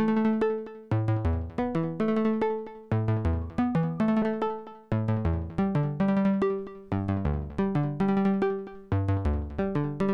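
Software modular synthesizer (Cherry Audio Voltage Modular) playing a repeating quantized sequence of short plucked notes over a bass line. Partway through, the notes move to a different set of tones: the Septitone quantizer's scale selection is switched to inverted by the step sequencer.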